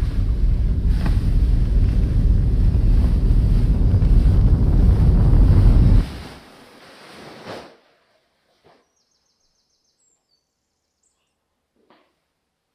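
Loud, wind-like rushing noise with a deep rumble, swelling steadily and then cutting off suddenly about six seconds in; a faint remnant dies away a moment later. Afterwards near silence, broken by a few faint soft knocks.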